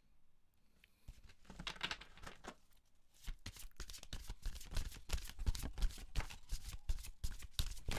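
A deck of tarot cards being shuffled by hand: a fast run of papery flicks and taps that starts about a second in and grows louder from about three seconds.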